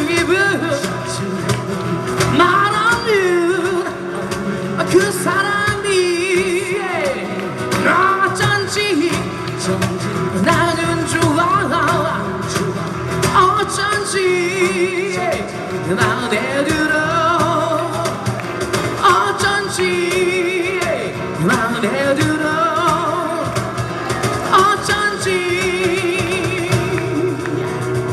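Live singing of a song with instrumental accompaniment, the sung notes held with a wavering vibrato.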